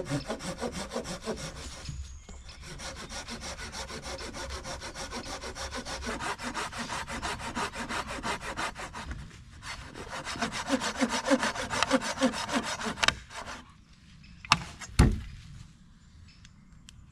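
Hand saw cutting through a dry, dead fallen branch in rapid, even back-and-forth strokes, pausing briefly twice. Near the end the sawing stops and two loud knocks follow.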